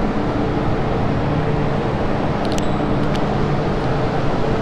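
Steady rumble of an MTR M-train at an underground platform, heard through the closed platform screen doors, with a few faint ticks about two and a half seconds in.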